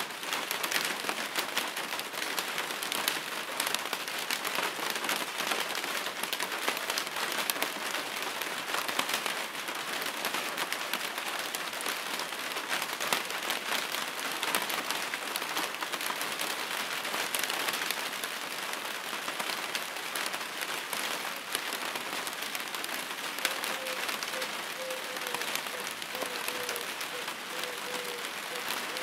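Steady rain with a dense patter of drops hitting a surface. Near the end a faint note joins in, pulsing about twice a second.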